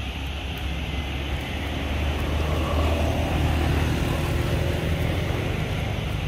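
Steady low rumble, growing a little louder through the middle.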